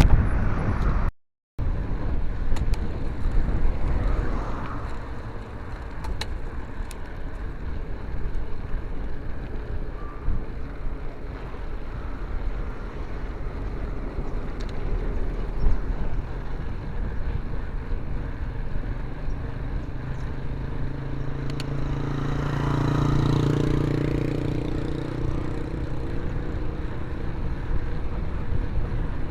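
Steady wind and road noise from a moving bicycle ride. A motor vehicle's engine swells and fades as it passes about two-thirds of the way through.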